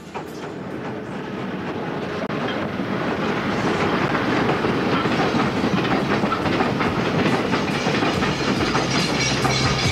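Lignite coal train of covered wagons rolling past, wheels clattering and rattling over the track; the noise grows louder over the first few seconds, then holds steady.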